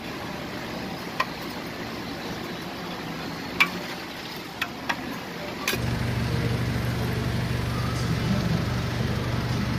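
Outdoor market ambience with a few sharp clicks in the first half, then a steady low motor hum that starts suddenly a little past halfway.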